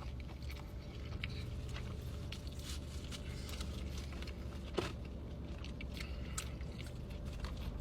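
Close-up chewing of a burger, with small wet clicks over a steady low hum, and one sharper click about five seconds in.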